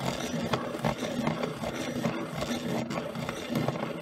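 Dahle 133 hand-crank pencil sharpener's cutter shaving a Caran d'Ache Supracolor II Soft coloured pencil as the crank is turned steadily. It keeps cutting without reaching its automatic stop.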